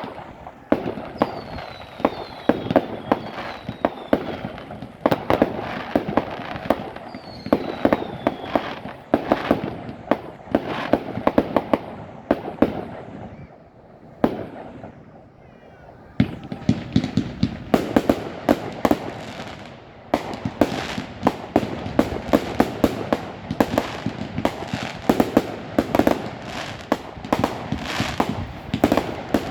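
Fireworks going off in rapid volleys of cracks and bangs, with a few short falling whistles early on. The volleys ease off for a few seconds about halfway through, then resume in a denser crackling barrage.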